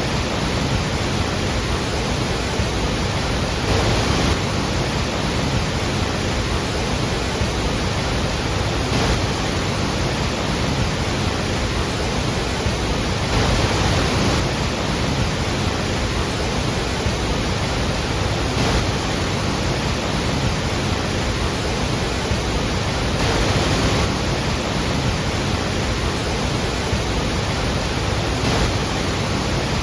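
Large waterfall thundering: a loud, steady rush of falling water with slight swells every few seconds.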